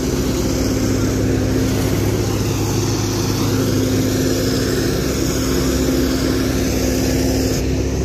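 Diesel engine of road-paving machinery running steadily, a constant-pitch hum with no change in speed. The hiss above it drops away just before the end.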